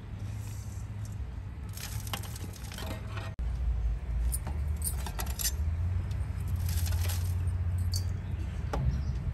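Light metallic clinks and taps on a stainless-steel tray, a few sharp ones about halfway through and near the end, over a steady low rumble.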